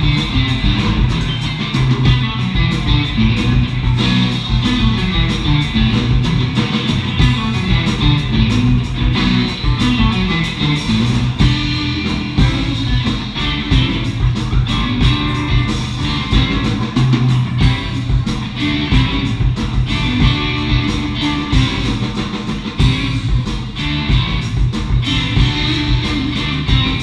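Live band playing a funk-rock number: electric guitars over bass and a steady drum beat.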